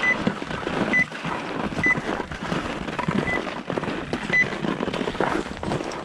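Ski-touring gear being handled on snow: dense rustling and irregular knocking of poles and skis. Five short high electronic beeps come at uneven intervals of about a second.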